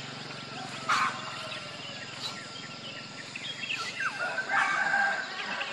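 Birds calling in short chirps and whistled glides over a steady hiss, with a falling call about four seconds in followed by a longer call.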